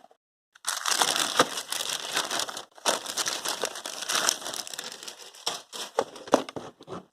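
Packaging being crumpled and crinkled by hand during unboxing: a dense run of crackling from about a second in, a short break midway, then scattered sharp crackles.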